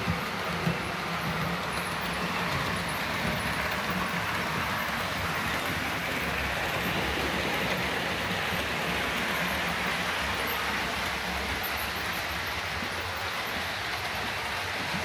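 Steady running noise of model railway trains on the layout, with the hum of small electric motors and wheels on the track. A sharp click less than a second in.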